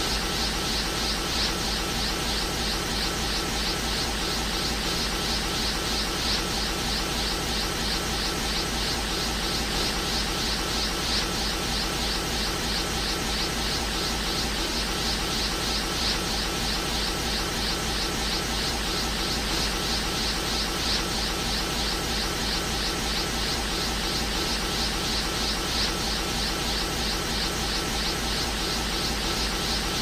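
Looped anime energy-aura sound effect: a steady, dense rushing hiss with a fast flutter, holding the same level throughout.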